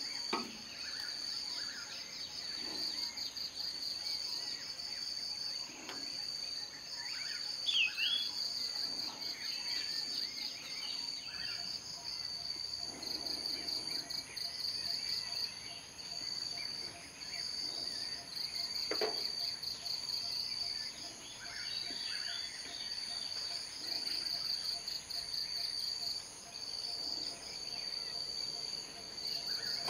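Steady chorus of insects: one trills in repeated phrases of about a second over higher, continuous buzzing. A single short, falling bird call sounds about eight seconds in.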